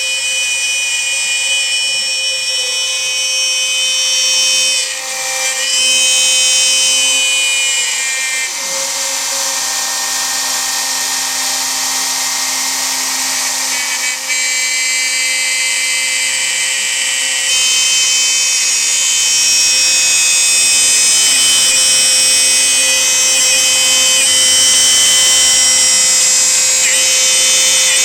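Home-built CNC router running, its motors giving a steady high whine made of several tones. The pitch jumps to new settings every few seconds, with short glides about five seconds in and near the end, as the machine changes its moves.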